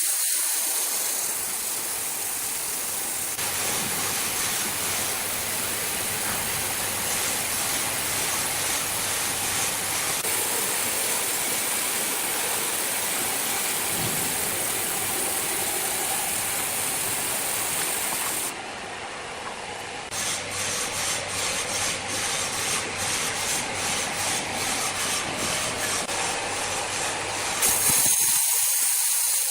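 Sawmill machinery running with a steady rushing noise as wood is processed. The sound changes abruptly about two-thirds of the way through, and again near the end.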